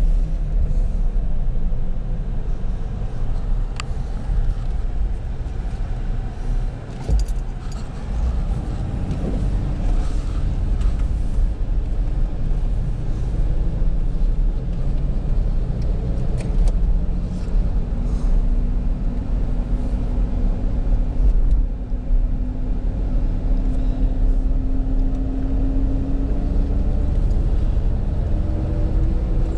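Engine and road rumble heard from inside a Ford's cabin while driving, with the engine's hum rising in pitch a couple of times as the car speeds up. A few short clicks and rattles sound over it.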